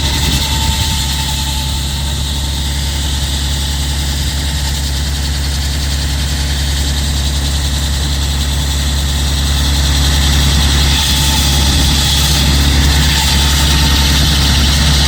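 Engine-driven concrete saw running steadily, with its engine hum under a broad hiss; it grows slightly louder about ten seconds in.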